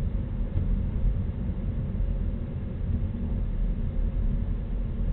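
Inside a car's cabin at low speed: the steady low rumble of the engine and tyres on the road, heard through a dashboard-mounted dash camera's microphone.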